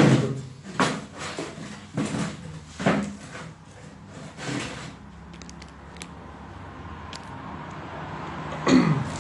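A man's short breathy laughs, about five huffs roughly a second apart, then a quieter stretch of faint handling clicks over a rising hiss, with one brief louder sound near the end.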